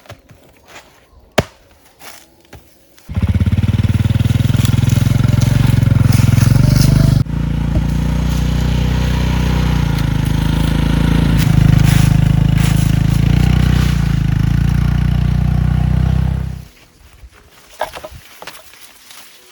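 A motor running steadily close by, switched on abruptly about three seconds in, with a brief change near seven seconds, and stopping abruptly near the end.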